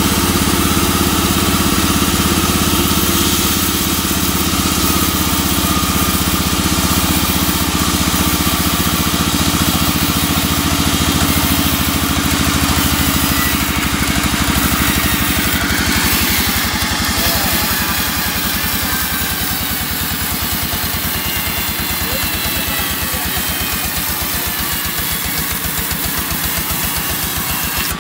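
Band sawmill cutting lengthwise through a teak log, the blade running steadily through the wood over the hum of its drive engine under load. The sound eases slightly about two-thirds of the way through.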